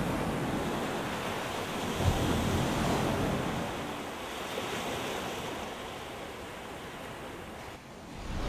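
Sea surf breaking and washing up a sandy beach: a wave breaks about two seconds in, the wash eases off, and the next surge builds near the end.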